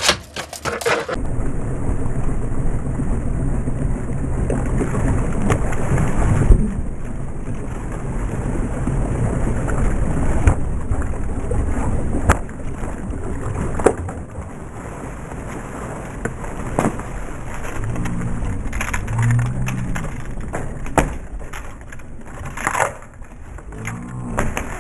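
Steady low rumbling noise on a fishing boat, louder for the first six seconds, with scattered sharp knocks.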